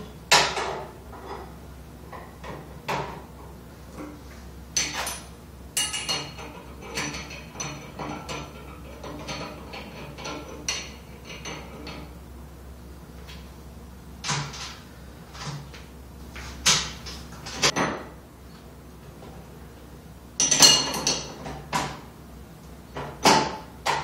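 Steel wrenches clinking and clanking on an axle and hub nut as a freewheeling rear wheel hub's nut is run on and tightened with a pipe wrench and a socket wrench. Irregular metal clicks throughout, busiest in the middle, with a louder burst of clanks near the end.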